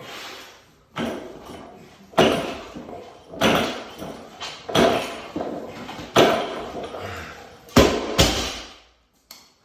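A 185 lb loaded barbell clanks five times, about every second and a quarter, as hang power cleans are caught in a room that echoes. Then the bar is dropped and hits the floor with a heavy thud and one bounce.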